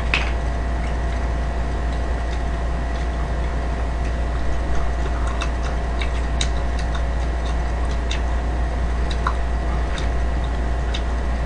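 Steady low background hum with a couple of faint steady tones, and scattered faint clicks and taps throughout.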